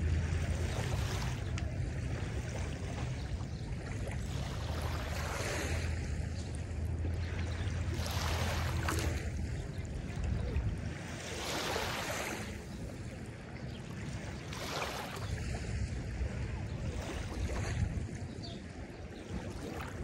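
Small lake waves lapping on a sandy shore, a soft wash of water swelling and fading every few seconds. Under it a low wind rumble on the microphone, which eases off about halfway through.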